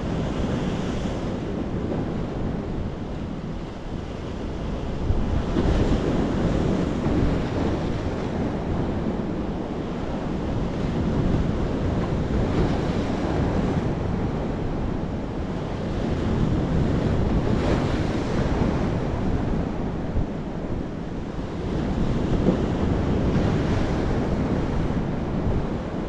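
Sea waves breaking over rocks and washing up a sandy shore, a continuous surf that swells into a louder surge every five or six seconds, with wind noise on the microphone.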